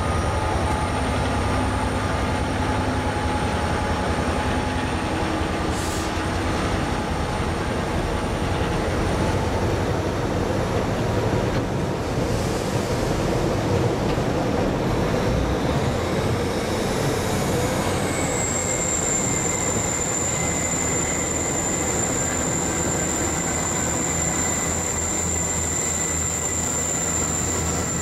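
Class 66 diesel-electric locomotive running past at slow speed, followed by a long train of bogie aggregate hopper wagons rolling by with a steady rumble. A thin, steady high-pitched squeal from the train comes in about two-thirds of the way through and holds.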